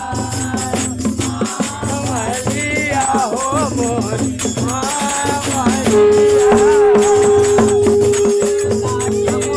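Chhattisgarhi jas geet devotional singing with rattling percussion. From about six seconds in, a long steady held note sounds over it and the sound gets louder.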